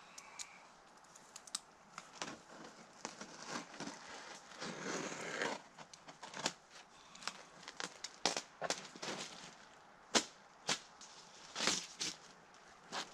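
Self-adhesive ice-and-water-shield roofing membrane and its plastic film being handled on the ground, crinkling and crackling in irregular sharp bursts, with a longer rustle about five seconds in.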